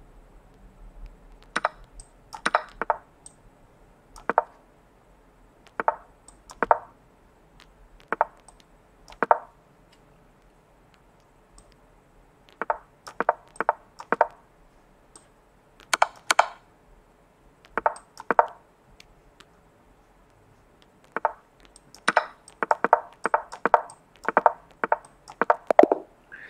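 Sharp clicks of pieces being moved in a fast online chess game. They come singly or in pairs at first, then in a quick run of about a dozen near the end: a time scramble as the clock runs out.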